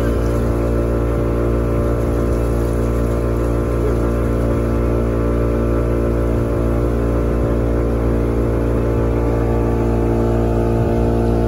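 Motorboat engine running steadily at a constant cruising speed, with the rush of water along the hull beneath it.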